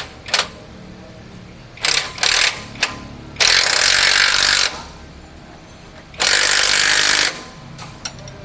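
An impact wrench runs in two bursts of about a second each on the steering rack mounting bolts of a Nissan Navara NP300. Before them come a few short clicks and taps of the tool and socket.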